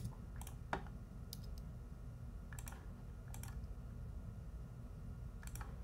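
Faint, scattered clicks of a computer mouse and keyboard, about a dozen, some in quick pairs, over a steady low hum.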